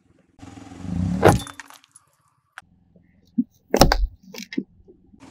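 Car tyre crushing small brittle objects: a crackle that builds to a sharp crack about a second in, then a second loud crunch near the four-second mark with a few small snaps after it.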